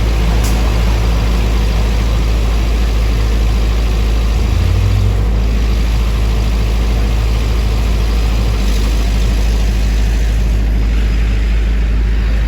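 Manhattan street traffic: vehicle engines running and idling, a steady loud low rumble.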